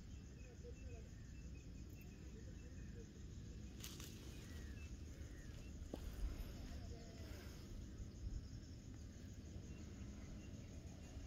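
Faint evening field ambience: insects trilling steadily in a high, pulsing band over a low rumble, with a couple of faint clicks about four and six seconds in.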